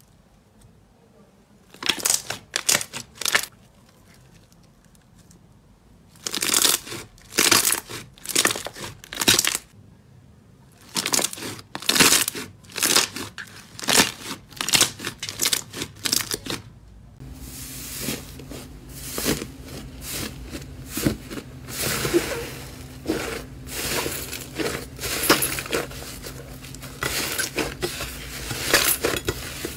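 Crunchy slime being squeezed and pressed, crackling and popping in short bursts. In the first half the bursts come in groups with pauses between them; from a little past halfway the crackling is near-continuous over a faint low hum.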